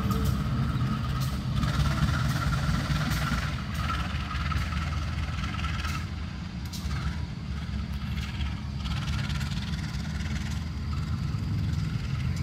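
CC201 diesel-electric locomotive running as it pulls away during shunting: a steady low engine rumble with a thin higher tone over it in the first half. It fades somewhat as the locomotive recedes.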